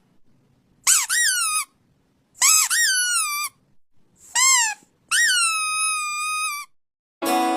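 A young animal giving a series of high-pitched crying calls, each rising and then falling, the last one long and drawn out. Guitar music starts just at the end.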